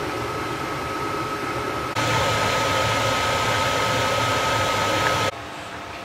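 Steady mechanical whir with a thin, constant high whine, like a kitchen appliance fan. About two seconds in it becomes louder and fuller, where a pot of soup is boiling, and it cuts off sharply near the end.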